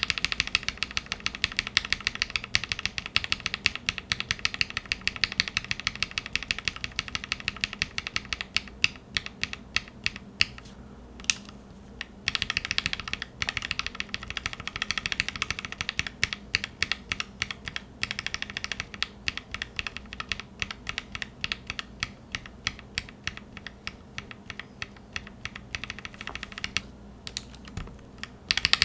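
Fast typing on a Satisfaction75 mechanical keyboard with an FR4 plate and linear switches: dense, rapid keystroke clacks, pausing briefly about eleven seconds in and again near the end.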